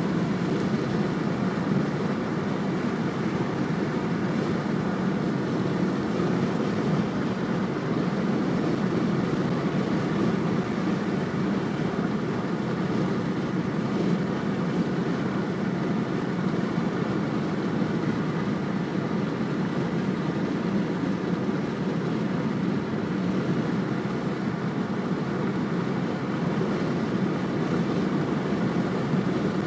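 Steady road noise inside a Mercedes-Benz cruising at freeway speed: a constant low rumble of tyres and engine, with no sudden sounds.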